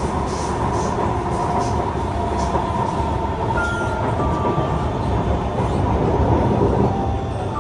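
Inside a Kawasaki C151 metro train car running along the track: a steady rumble of wheels on rail, with faint thin steady tones above it.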